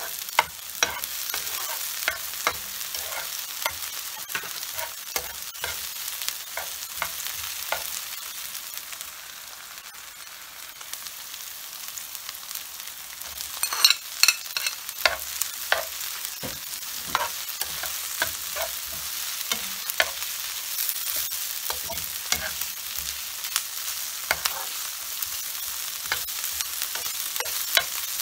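Sliced red onions sizzling in a nonstick frying pan while a spatula stirs them, with many light clicks and scrapes against the pan. The stirring pauses briefly, then a few sharp knocks come about halfway through as shredded cooked chicken is tipped in from a bowl, and the stirring carries on.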